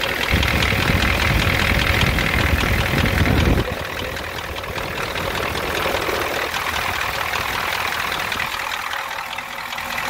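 Ford 7.3L IDI V8 diesel idling with a knock, in a 1988 F250 whose engine is knocking and has a leaking high-pressure fuel line. The sound is heavy and deep for the first three and a half seconds, then lighter and steady.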